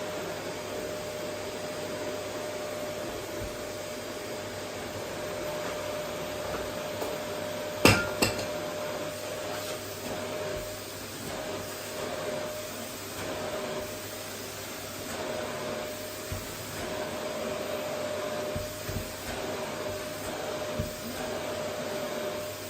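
Vacuum cleaner running steadily with a constant whine as it works a wooden floor. A sharp double knock about eight seconds in is louder than the motor, and a few lighter knocks come near the end.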